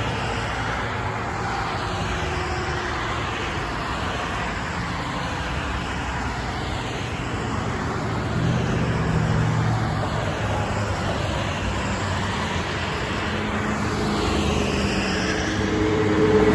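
Steady multi-lane highway traffic: cars, vans and trucks passing with tyre noise and engine hum. It grows louder near the end as a box truck's engine drone comes close.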